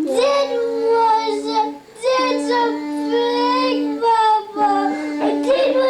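A high voice singing a tune in short phrases, over a steady held low note. The phrases break off briefly about two and about four seconds in.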